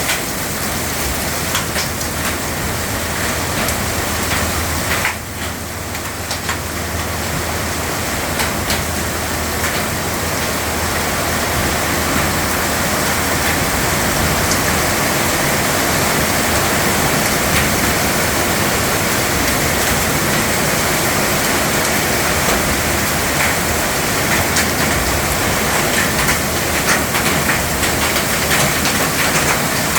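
Heavy rain pouring down in a dense, steady rush, with scattered sharp ticks of drops striking hard surfaces. The level dips briefly about five seconds in, then rises back.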